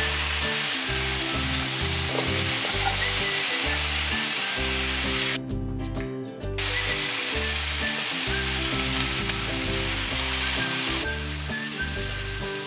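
Cubed sirloin steak bites searing in hot oil in a nonstick skillet, with a steady sizzle. The sizzle drops out for about a second near the middle. Background music plays underneath.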